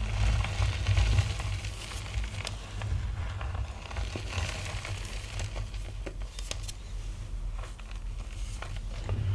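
Gym chalk being crushed and squeezed by hand, crumbling with crackling crunches and scattered sharper clicks, over a steady low rumble underneath.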